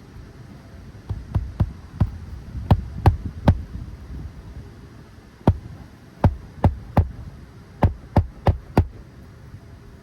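Hammer driving roofing nails into an asphalt shingle, about fifteen sharp strikes in uneven groups with a pause around the middle: a shingle being re-nailed.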